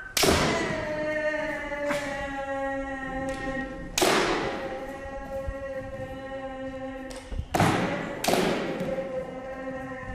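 Kendoka giving long, drawn-out kiai shouts, each held for a couple of seconds, broken about five times by sharp hits of bamboo shinai strikes and stamping feet on the wooden dojo floor.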